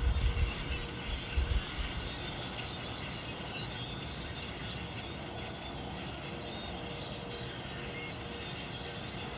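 A huge flock of birds calling all at once: a dense, steady chatter of many overlapping calls. A few low thumps sound in the first two seconds.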